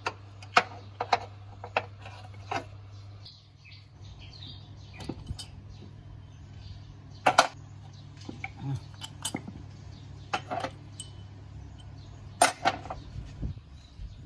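Metal clinks and knocks as a car air-conditioning compressor and the tools around it are handled under the hood: scattered sharp taps, a few louder clanks, over a steady low hum.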